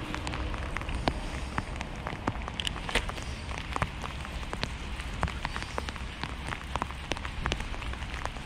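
Steady rain falling on water: an even hiss with irregular sharp ticks of single drops.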